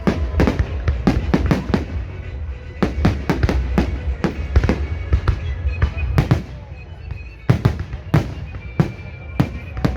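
Fireworks display: aerial shells bursting in a rapid, irregular barrage of sharp bangs, several a second, over a low rumble. The barrage eases briefly past the middle, then resumes with heavy bangs.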